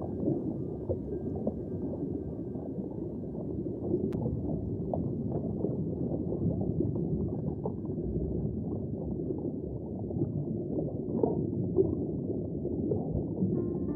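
Underwater ambience: a steady, muffled low rush with many small crackles and pops scattered through it. Music comes in right at the end.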